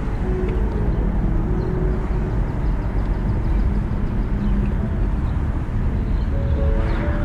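Car driving along a city street, heard from inside: steady low engine and road rumble.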